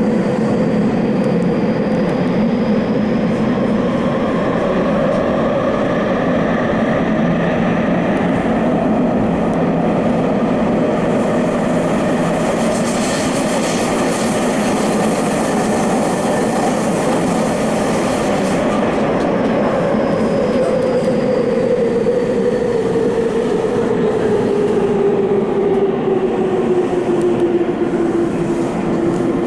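Electric subway train running through a tunnel, heard from inside the rear car: a steady rumble of wheels on rail under the whine of the traction motors. A hiss of higher noise comes in from about twelve to eighteen seconds in, and the motor whine falls in pitch over the last several seconds.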